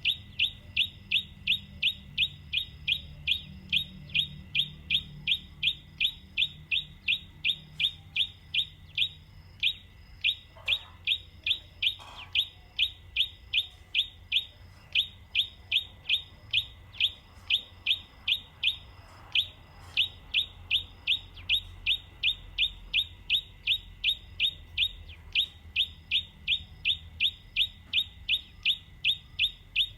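A bird repeating one short, falling chirp over and over, about three times a second and very evenly, with an occasional brief skip.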